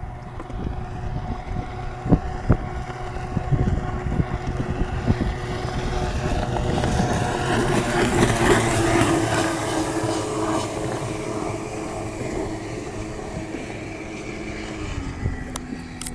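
1996 Yamaha Wave Venture 1100's three-cylinder two-stroke engine at full throttle as the watercraft passes at top speed. It grows louder to a peak midway, then fades, its pitch dropping near the end. There are two sharp thumps on the microphone about two seconds in.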